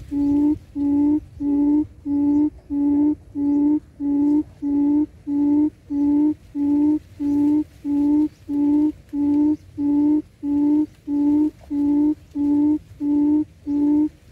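Wild quail lure call played back at a trap: a low hooting note repeated very evenly, about one and a half times a second.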